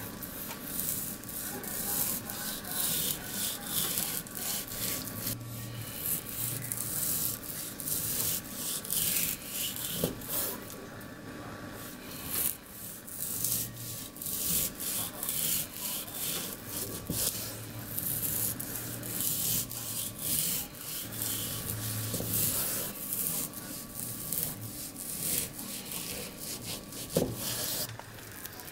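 Kitchen knife sawing back and forth through a half-thawed roast beef on a wooden cutting board: a long run of quick rasping strokes as the blade cuts thin slices through the firm, partly frozen meat.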